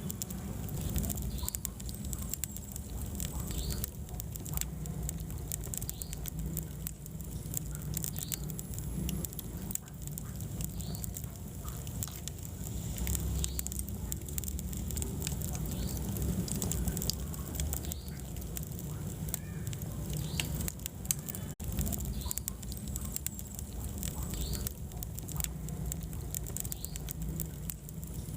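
Wood fire burning in a fireplace: a steady low rumble of flames with frequent sharp crackles and pops. The sound briefly cuts out about three-quarters of the way through.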